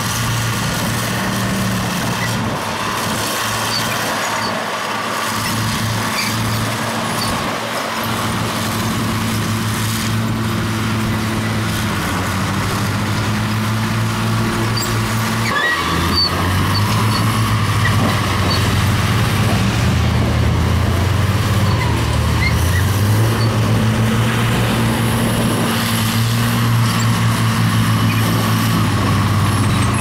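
Heavy diesel engine of earthmoving machinery running, its low note shifting in steps as the engine speed changes, with a brief dip about halfway through.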